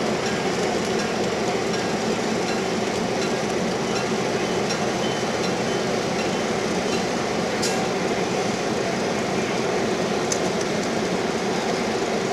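EMD E8 diesel locomotive, with two 12-cylinder 567B engines, running steadily with a continuous rumble. A faint sharp click comes about seven and a half seconds in, and another near ten seconds.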